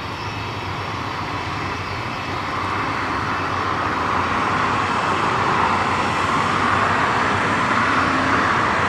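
Jet engines of a Boeing 747-400 airliner, a steady rushing roar that grows steadily louder over several seconds.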